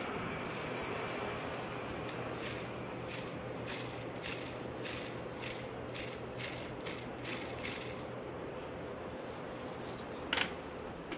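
Light clicks and rattles from the plastic parts of a Walkera V120D02 micro RC helicopter as it is handled, coming about twice a second, with one louder click near the end.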